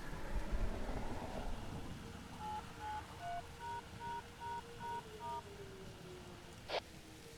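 A run of about eight short DTMF touch-tone beeps, the control tones sent to cancel the outdoor warning sirens. Under them a distant warning siren's tone slowly falls in pitch as it winds down, and there is a single sharp click near the end.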